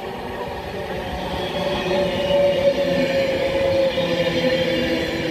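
Class 390 Pendolino electric train passing at speed. A rush and rumble of wheels on rail grows louder about two seconds in as the carriages go by, with a steady whine over it.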